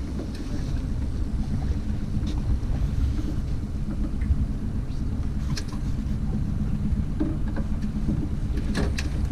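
Boat's outboard motor running steadily while trolling, with wind and water noise and a few sharp clicks from gear aboard.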